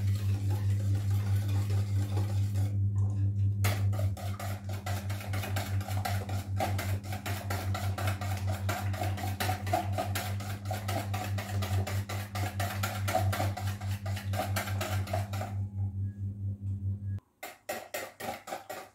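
Wire balloon whisk beating cake batter in a bowl, its wires ticking quickly and rhythmically against the bowl, about five strokes a second, with a short pause near the start and another near the end. A steady low hum runs underneath and cuts off about seventeen seconds in.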